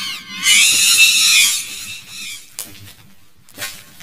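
High, distorted cartoon animal call, several pitch-shifted copies layered, lasting about a second and a half, then a couple of short clicks.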